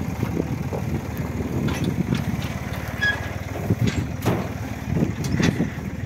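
Tractor engine running steadily while its hydraulic bale-loader arm lifts a hay bale and tips it into a steel trailer. Several knocks and thuds come from the arm and the bale landing.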